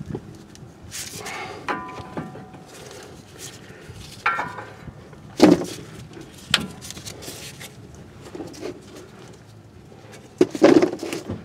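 Heavy cast-metal brake caliper on a 2003 Workhorse W22 chassis being handled and fitted back over the disc rotor: scattered metal clunks and clinks, a few with a brief ringing tone. The loudest knocks come about halfway through and near the end.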